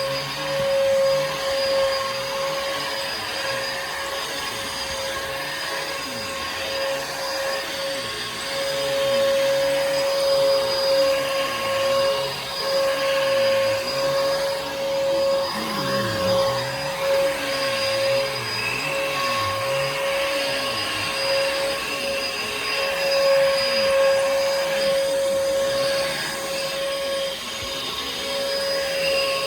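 Bissell PowerForce Helix vacuum cleaner running, its motor giving a steady whine with a lower sound that wavers underneath.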